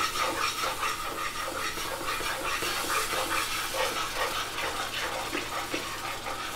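Chicken stock sizzling and steaming as it is poured into a hot cast-iron pan of roux, with faint repeated scrapes of a spoon stirring it in.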